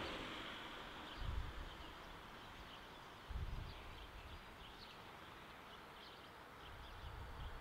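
Songbirds chirping faintly in short calls, with two brief low rumbles about one and three seconds in. At the start the sound of a passing train dies away.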